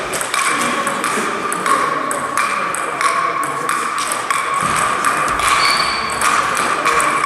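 Table tennis rally played with sandpaper-covered bats. The ball is struck and bounces on the table in a quick, irregular run of sharp pings, each ringing on briefly in the hall.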